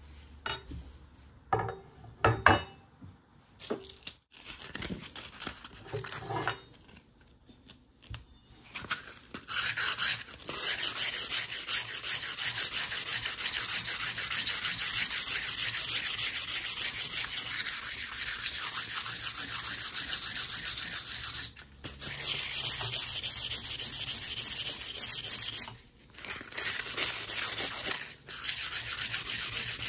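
Sandpaper rubbed back and forth by hand along the steel blade of an old P.S. & W. Co. drawknife, scrubbing at its rust and pitting with quick, steady scratchy strokes. A few knocks as the knife is handled come first, and the sanding starts about a third of the way in, stopping briefly twice.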